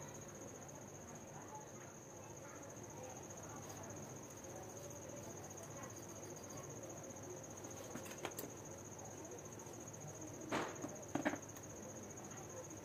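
A cricket trilling steadily at a high pitch in the background, with a few light clicks from the soldering iron's parts being handled, the loudest a little over ten seconds in.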